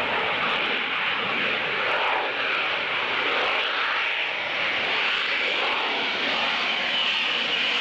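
AV-8B Harrier jet's Pegasus turbofan running steadily at high power as the jet flies slowly, gear down, in jet-borne hover. A high whine comes in near the end.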